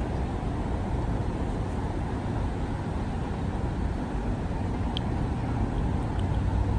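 Steady rumble of road traffic, with a single faint click about five seconds in.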